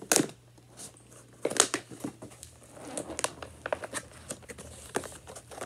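Clear plastic blister packaging of a boxed toy figure being pulled and pried open by hand: sharp crackles and crinkles, the two loudest just after the start and about a second and a half in, then a run of smaller crackles.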